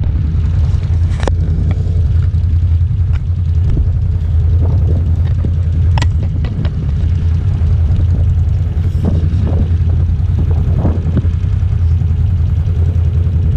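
Off-road vehicle engine running steadily with a deep, even drone, and a few sharp knocks along the way.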